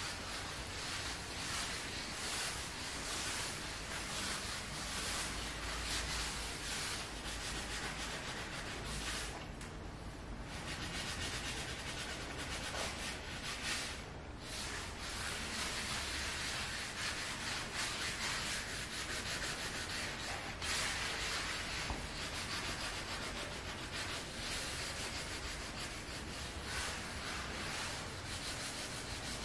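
Hand scrubbing of a wet wooden parquet floor: a steady, stroke-by-stroke rubbing against the wood, pausing briefly twice.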